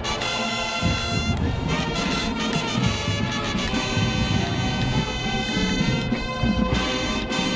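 College marching band playing, with held brass chords over steady drum strokes.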